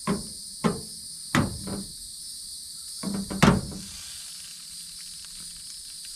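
Sharp knocks of camp cookware being handled, about six over the first four seconds, each with a brief metallic ring. A steady chorus of crickets or other insects runs beneath.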